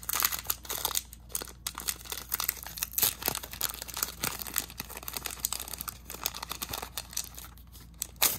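Pokémon card booster pack's foil wrapper crinkling and tearing as it is pulled open by hand, in irregular crackles with one sharper crackle near the end.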